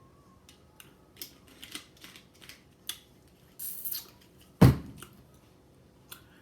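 Close-miked eating sounds: wet mouth clicks and smacks while chewing a sandwich, a short hiss a little past halfway, and one loud thump about two-thirds of the way in.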